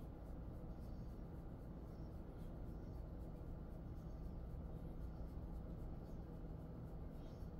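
Faint, soft scratchy rustling of hands rubbing and massaging a dog's fur, over a steady low hum.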